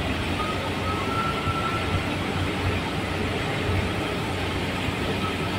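A truck running: a steady low rumble under an even noise, with a faint high whine in the first couple of seconds.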